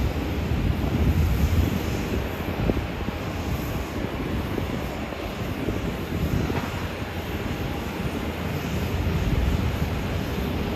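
Jet airliner's engines rumbling steadily as it passes, a deep noisy roar with most of its weight in the low end.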